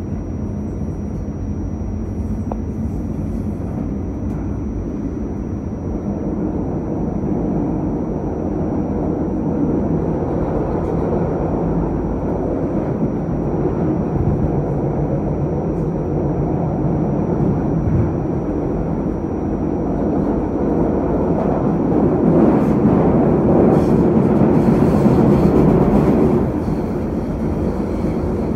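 Light rail car running on the track, heard from inside the car as a steady rumble. It grows louder a little after two-thirds of the way through and drops off suddenly near the end.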